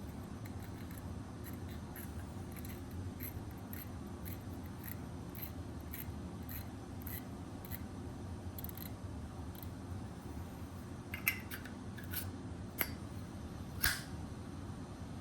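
Small metal clicks and ticks from handling a Zippo lighter's insert: faint light ticks about twice a second, then a few sharper clicks near the end, over a steady low hum.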